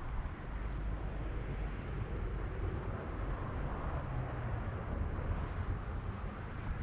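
Steady low rumbling outdoor ambience with no distinct events.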